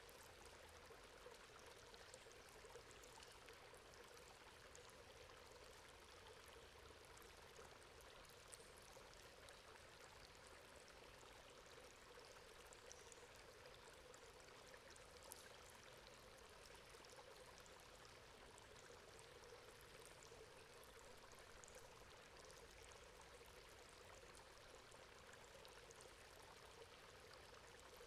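Water running through a metal grate: a faint, steady trickling rush that does not change.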